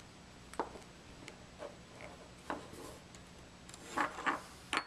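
Small clear plastic sampler parts and their seals being handled and set down on a wooden tabletop: scattered light clicks and knocks, with the loudest cluster about four seconds in.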